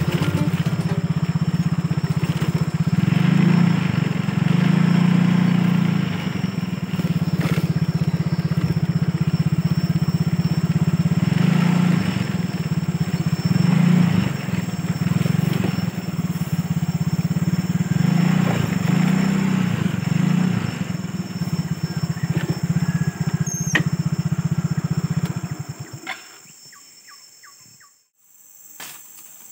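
A small engine running steadily, its level rising and falling slightly, until it cuts off abruptly near the end, leaving only faint outdoor background.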